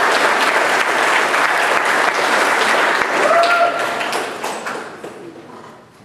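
Audience applauding, with a single voice cheering out about three and a half seconds in; the clapping dies away near the end.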